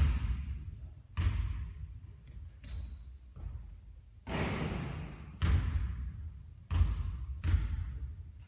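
Basketball hitting the court and bouncing, about six separate thuds, each with a decaying tail. A brief high squeak sounds about three seconds in.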